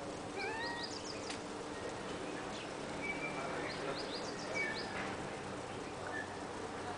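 Thin, high kitten mews mixed with quick runs of small-bird chirps, in two clusters about half a second in and again around four seconds in.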